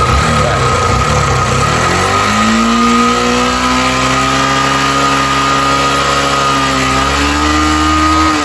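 A carbureted 150 cc motorcycle engine running. About two seconds in it is revved up and held at a raised, steady speed, its pitch creeping slightly higher, and it drops back near the end; this is the hold at revs for a multimeter check of the stator's output. A steady high whine sounds alongside it.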